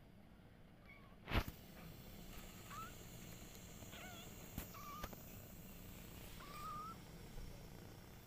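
Kittens mewing faintly: about five short, high calls spread out, the longest near the end. A sharp knock about a second and a half in.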